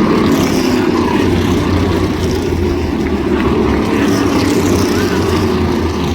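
Modified race cars' V8 engines running together in a steady, dense, low rumble, with no single car passing by or revving.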